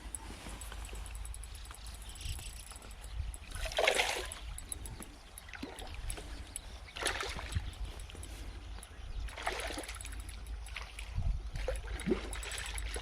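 Water splashing in separate bursts every few seconds, the loudest about four seconds in: a hooked largemouth bass thrashing at the surface of a canal during the fight.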